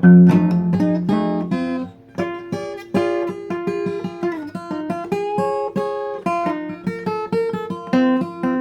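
Acoustic guitar instrumental passage of a song: plucked notes in quick succession, with a short break about two seconds in.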